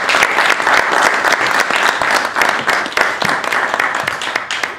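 Audience applauding, many hands clapping together; the applause thins out and dies down near the end.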